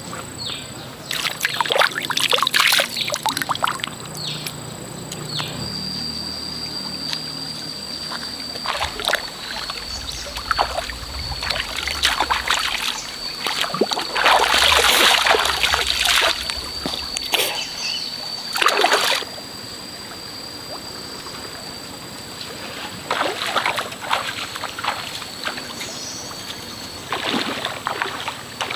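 Shallow stream water splashing and sloshing in irregular bursts as a person wades and works her hands in the water, loudest about halfway through. A thin, steady high whine runs behind it for much of the time.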